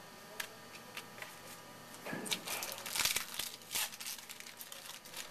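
Baseball card pack wrapper being torn open and crinkled, with light clicks of cards being handled. The crinkling comes about two seconds in and lasts about two seconds.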